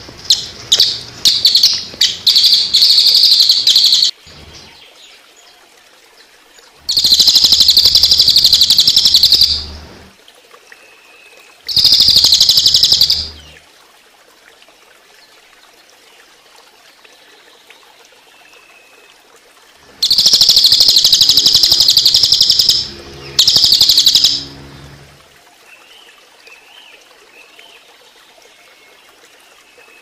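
Crested jay (cililin) giving its rapid-fire 'tembakan' call: fast, high rattling trills in about five bursts of one to four seconds, with a long pause in the middle. Faint running water trickles between the bursts.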